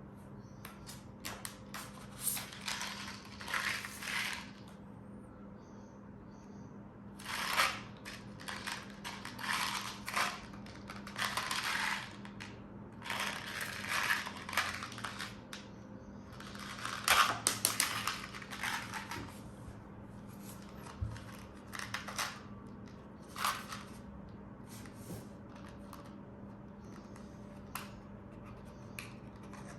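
Metal parts of a full-metal gas blowback airsoft pistol clicking and rattling as it is handled, in irregular clusters a second or two long, the loudest about two-thirds of the way through.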